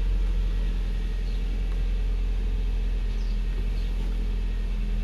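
Hyundai i30's 2.0 engine idling steadily, with a low, even hum, while the steering is turned. A few faint, short, high chirps are heard over it.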